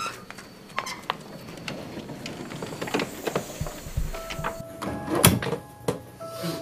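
A screen door being handled and shut, with scattered clicks and knocks, the sharpest a little past five seconds in. About four seconds in, sparse held music notes begin.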